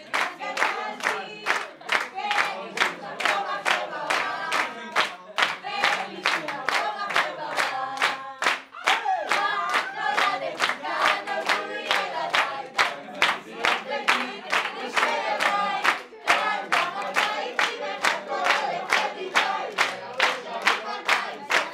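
A crowd of people singing a song together, unaccompanied, while clapping their hands in time on a steady beat of about two and a half claps a second.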